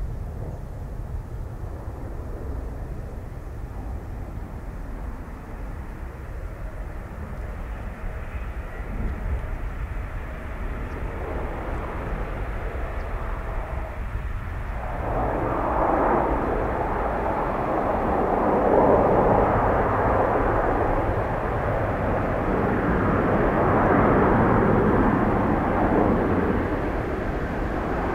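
Airbus A400M's four turboprop engines running as the aircraft lands and rolls down the runway. The engine sound swells sharply about halfway through and stays loud.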